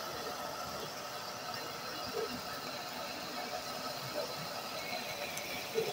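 Pot of wet fry beef stew simmering on a gas burner: a steady low hiss with a few soft pops, about two seconds in and again near the end.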